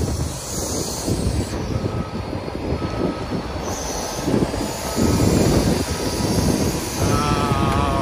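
Volvo wheel loader running hard as it shoves a whale carcass across the ramp, its engine rumble mixed with grinding and scraping as the forks and the carcass drag over the ground. A brief wavering squeal comes near the end.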